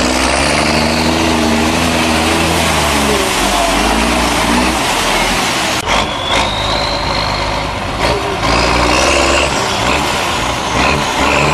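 Off-road trial truck's diesel engine revving hard under load, the pitch rising and falling as it crawls up out of a mud pit. The engine eases off around the middle and picks up again in the second half.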